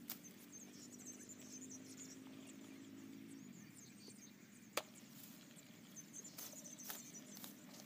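Long iron digging bar striking hard, dry paddy soil while digging out a field-crab burrow: one sharp strike about five seconds in, then a few lighter knocks near the end.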